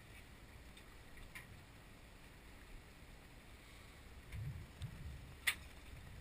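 Faint low rumble of a boat at sea, with a few dull knocks about two-thirds of the way through and one sharp click near the end.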